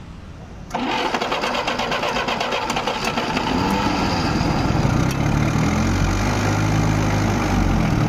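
An old jeep's petrol engine starts suddenly about a second in and keeps running loudly with a fast, uneven pulsing beat.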